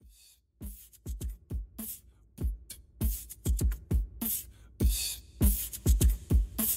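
Background music with an electronic beat: deep kick-drum thumps and hi-hat ticks that start after a short pause and grow denser toward the end.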